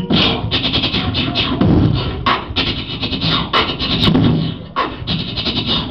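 Beatboxed, mouth-made sound effects: a fast run of clicks, hisses and chopped mechanical noises imitating Transformers robot sounds.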